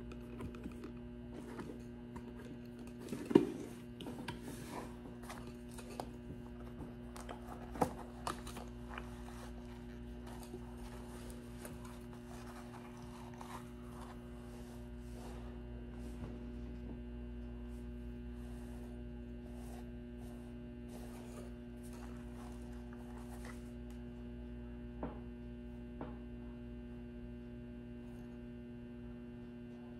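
Steady electrical hum, with rustling, handling noise and small clicks from a latex mask being pulled on and adjusted over the first half. There are two sharper knocks about three and eight seconds in; after that only the hum is left.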